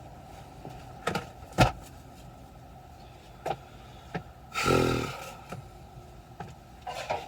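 Several knocks and clicks of things being handled, the sharpest about one and a half seconds in, with a brief whirring about two-thirds of the way through.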